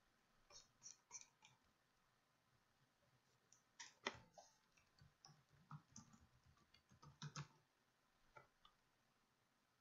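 Faint, scattered clicks of a computer keyboard and mouse while a search query is typed, in small irregular clusters rather than a steady rhythm.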